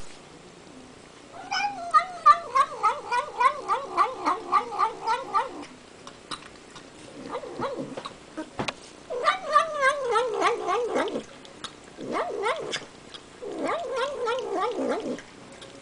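Domestic cat making a rhythmic 'nom nom nom' vocalization while eating, a wavering, pulsing yowl-like murmur about four pulses a second. It comes in five runs of one to four seconds, with short pauses between.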